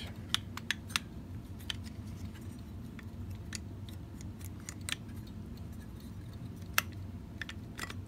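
Scattered light clicks and taps of small metal and plastic parts of a VW Beetle speedometer being handled and fitted back together, with one sharper click about two-thirds of the way through, over a low steady hum.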